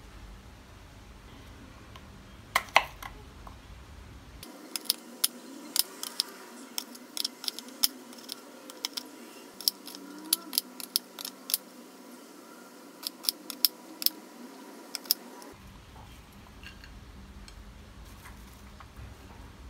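Kitchen knife slicing an onion on a bamboo cutting board: irregular sharp knocks of the blade striking the wood, coming in quick runs through the middle.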